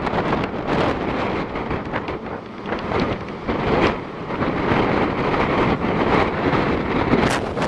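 Strong typhoon wind gusting straight onto the microphone, a loud, rumbling rush that swells and drops with each gust.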